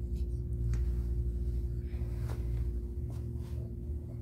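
A steady low hum throughout, with faint scattered soft clicks and rustling from a mother cat licking her newborn kittens and shifting about in a fabric pet bed.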